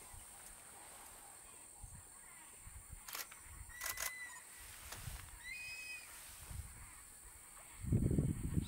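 Riverbank wildlife ambience: a steady high-pitched drone, a short whistled bird note about four seconds in and a chirping bird call near six seconds. A couple of quick camera shutter clicks come a little after three seconds, and a louder low rumble near the end.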